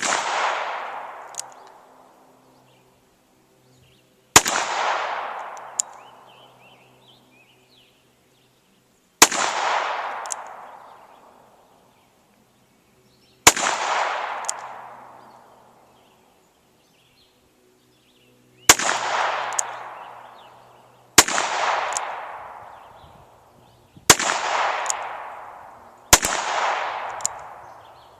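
Eight single handgun shots, most likely a .22 LR, fired a few seconds apart at spring-loaded steel targets, each shot sharp and followed by a long echo that dies away.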